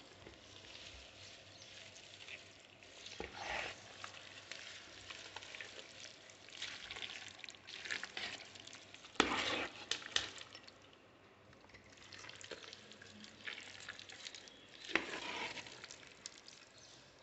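Wet chopped tomato pickle being stirred and mixed in a steel pot, giving squelching, crackly stirring noises that come in irregular bursts with occasional clicks against the pot.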